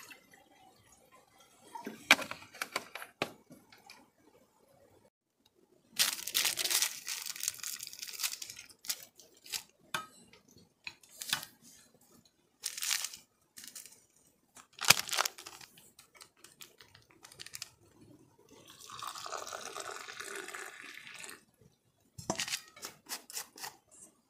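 Camp cooking handling sounds: a plastic snack packet crinkling and tearing open, scattered clinks and knocks of steel pots and a steel cup, and a few seconds of liquid pouring near the end.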